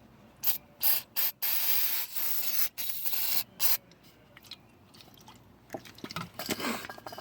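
Aerosol brake cleaner sprayed into a seized lock cylinder to flush out oil-softened grime: a few short hissing bursts, then a longer spray of about two seconds, then one more short burst. Near the end come a run of small clicks and rattles.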